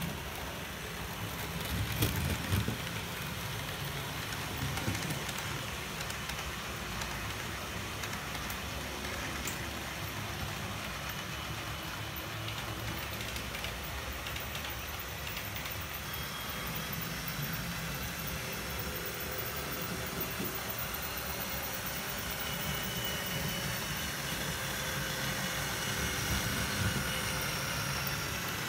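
HO-scale model trains running on the layout: a steady whirr of small electric motors and wheels rolling on the rails, with a few sharp clicks over rail joints and points about two and five seconds in, and a faint high whine in the second half.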